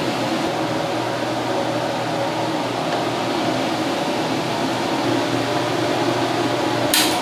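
Diced onions frying in a pan over a gas burner: a steady hiss with a fan-like hum under it. A single sharp knock near the end.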